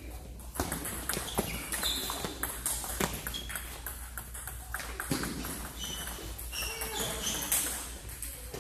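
Table tennis rally: the ball clicking sharply off rackets and table, hit after hit at an irregular pace.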